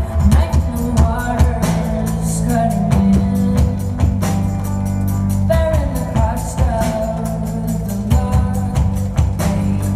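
Live pop band playing a song: drums keeping a steady beat, bass, and a woman singing the melody.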